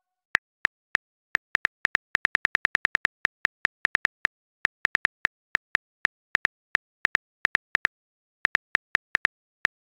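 Phone keyboard tap sound effect: quick, irregular key clicks in runs of several a second with short pauses, as a reply is typed out.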